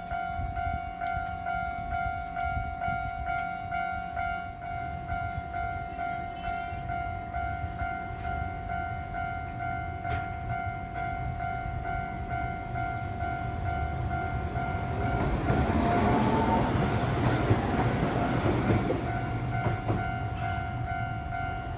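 Level-crossing warning bell ringing steadily while a Tokyu Setagaya Line train passes through the crossing in the second half. The running and wheel noise swells for about five seconds and then fades, with the bell still ringing.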